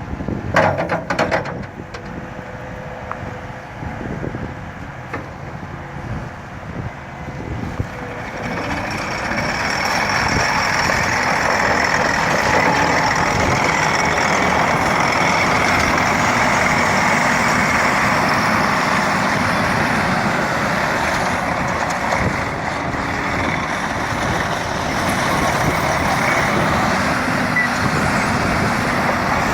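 Diesel engine of a 2012 Takeuchi TL230 tracked skid-steer loader running, with a few sharp clatters near the start. It grows louder about eight seconds in and stays loud and steady.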